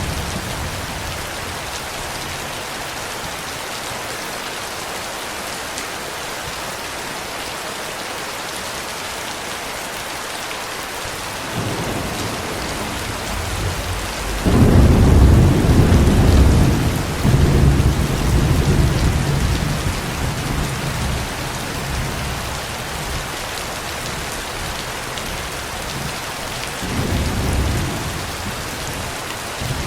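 Steady rain falling with thunder. A low rumble begins a little before halfway, then a loud peal of thunder rolls on for several seconds and slowly fades, and a shorter rumble comes near the end.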